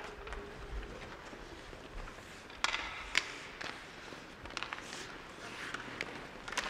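Ice hockey play on the rink: skate blades scraping the ice and the clack of sticks and puck. There are scattered sharp knocks, the loudest two about two and a half and three seconds in.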